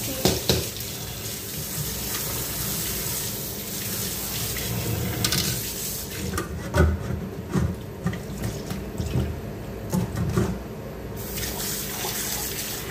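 Kitchen tap running into a stainless steel bowl of shrimp as they are rinsed by hand in the sink. Short metallic knocks of the bowls being handled come near the start and several times in the middle.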